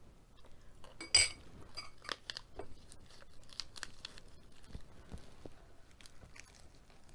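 A metal fork clinks once against a glass bowl about a second in. Then a fresh lettuce leaf crinkles as it is folded around food, and near the end comes crisp crunching and chewing as the lettuce wrap is bitten into.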